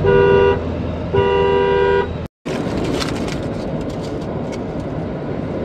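Car horn honking twice, two short blasts of a horn with two notes sounding together, the second a little longer. After a brief dropout, steady engine and road noise inside a moving car's cabin.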